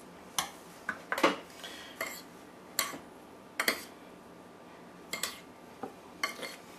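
Metal fork clinking against dishes while breaded chicken pieces are turned: about nine sharp, irregular clinks.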